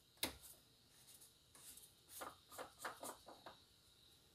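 Faint rubbing and clicking of a plastic coolant expansion tank cap being unscrewed and lifted off by a gloved hand, with a quick run of small clicks about two to three and a half seconds in.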